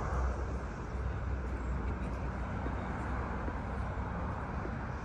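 Steady low background rumble with no distinct events, in the manner of distant engines or traffic.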